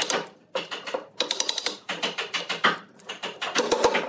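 Wooden mallet striking a steel chisel in quick runs of taps, chopping waste out of a pine block; four short bursts of rapid knocks with brief pauses between them.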